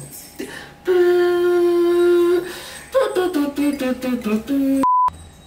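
A man hums a long, loud held note, then a run of notes stepping down in pitch. Near the end a short single-tone censor bleep cuts in.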